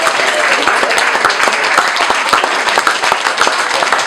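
Audience applauding: many hands clapping in a dense, steady spray.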